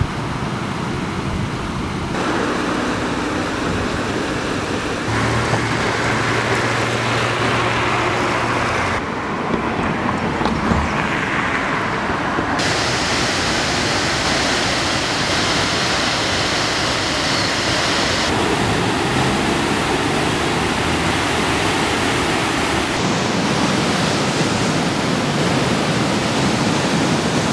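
Rushing water of a river in flood: a steady, even rush that shifts abruptly in tone several times, with a low hum for a few seconds near the start.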